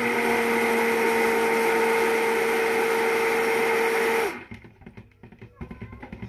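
Stick blender running steadily in soap batter, mixing activated charcoal into it, with a steady hum, then switched off about four seconds in. A few light knocks follow.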